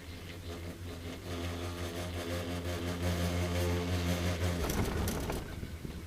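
Chairlift passing a lift tower: a steady humming drone that grows louder, then a rattling clatter as the chair's grip runs over the tower's sheave wheels, about four and a half seconds in.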